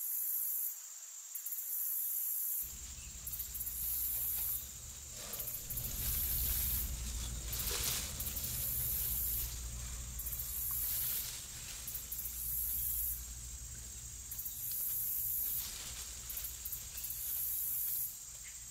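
Very high-pitched insect stridulation, a hissing trill that switches on and off in spells of about a second. A steady low rumble runs beneath it from about three seconds in.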